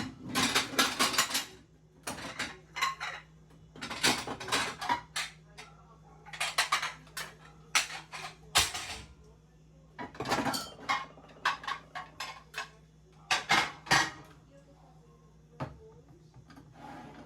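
Dishes and cutlery clattering and clinking in irregular bursts as kitchenware is taken out of a cupboard and set down, under a faint steady hum.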